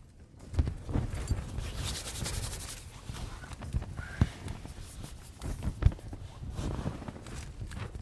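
Soft irregular thumps and rustling from objects being handled on a tent floor, with a stretch of rustling about two seconds in and a few sharper knocks.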